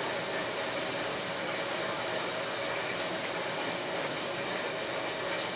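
Hands pressing and smoothing thin plastic covering film onto adhesive-sprayed wooden model wing frames: a light crackling, crinkling rustle with small clicks that comes and goes, over a faint steady hum.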